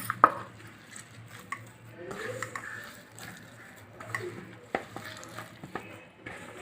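Hands kneading a stiff semolina-and-onion dough in a bowl, with scattered sharp knocks against the bowl; two close together at the very start are the loudest.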